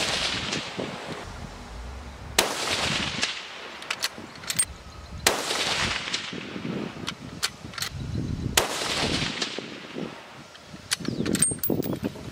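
Three rifle shots from a .223 Howa bolt-action, about three seconds apart, each a sharp crack followed by a short echo.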